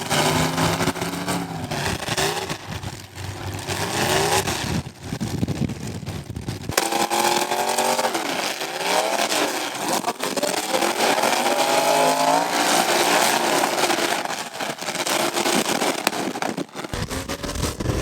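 Demolition derby cars with engines revving hard, their notes rising and falling as they accelerate and back off, with a few short knocks along the way.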